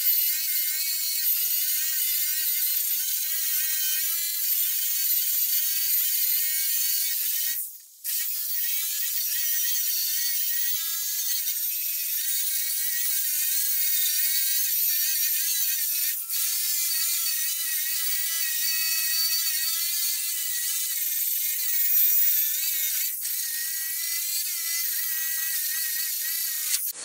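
Small corded high-speed rotary tool grinding along rusty sheet-steel seams, a steady high whine that wavers in pitch as it bears on the metal. It stops for a moment about eight seconds in and dips briefly twice later.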